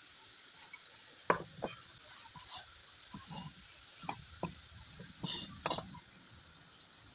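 Scattered light clicks and taps, about six in all, from small hand tools knocking against components and the board during soldering work; the sharpest comes a little over a second in.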